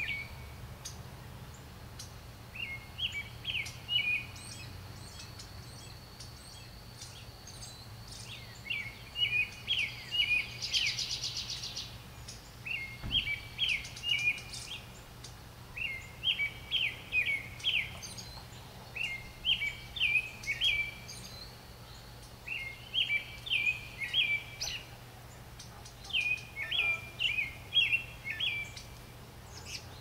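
A songbird singing the same short phrase of a few quick notes over and over, about every two seconds. A brief rapid buzzy trill comes in near the middle, over a low steady hum.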